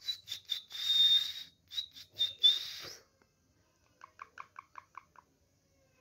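Indian ringneck parakeet giving a string of loud, high whistling calls for about three seconds, then a quick run of about seven short, softer chirps.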